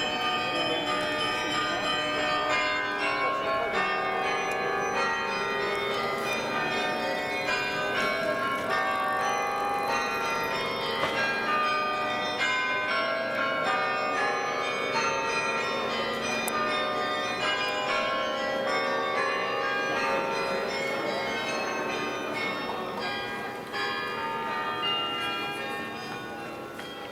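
St Peter's Church carillon playing a tune: many bell notes struck in quick succession, ringing on over one another, a little quieter near the end.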